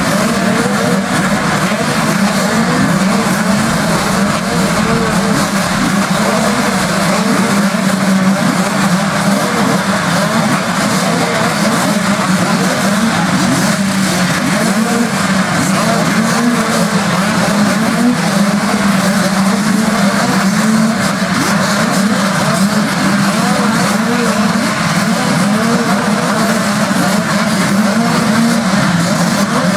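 Many motocross bikes' engines running together in a dense, steady mass of sound, their overlapping notes wavering up and down in pitch.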